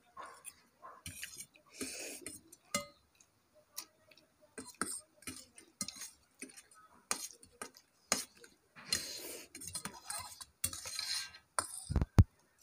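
Cutlery clicking and clinking against bowls while eating noodles, in scattered sharp ticks with a few short scraping stretches. Two dull low thumps come just before the end and are the loudest sounds.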